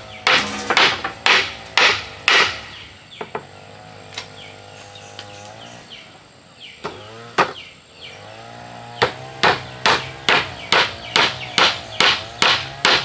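Hammer blows on wood: a run of strikes about two a second, a few scattered blows, then a quicker, steady run of strikes over the last few seconds.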